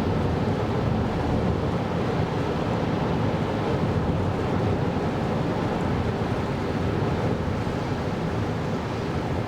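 Steady road and tyre noise of a 2024 Kia Carnival Hybrid minivan driving on a snowy road: a constant low rumble that eases slightly near the end.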